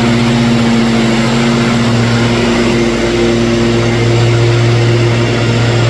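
John Deere E170 riding lawn mower running steadily as it drives across the lawn; its engine note shifts slightly in pitch about halfway through.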